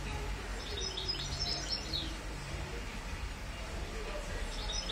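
A bird chirping: a quick run of high notes for about a second and a half, starting about half a second in, and a second run beginning near the end, over a steady low hum.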